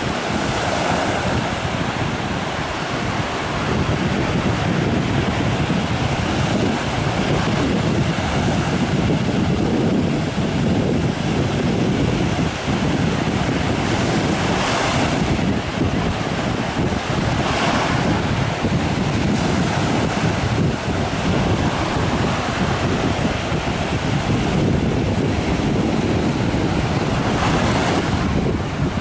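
Small waves breaking and washing up a sandy beach, with wind buffeting the microphone. Surf washes swell louder a few times, about halfway through and again near the end.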